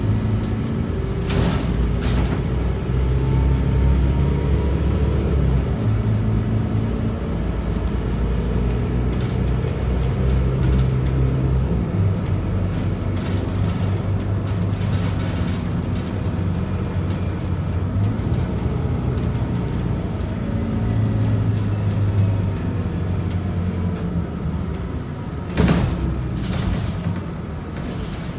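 Scania DC9 nine-litre six-cylinder diesel of a Scania K94UB city bus running under way, heard from inside the cabin near the front, its low drone changing in steps several times as the bus drives. A few short rattles or clicks cut in about a second in and again near the end.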